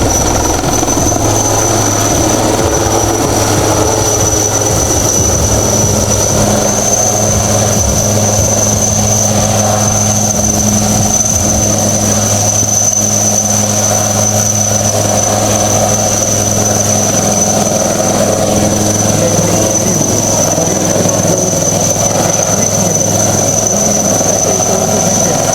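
Helicopter running steadily, its engine turbine giving a constant high whine over the rotor noise.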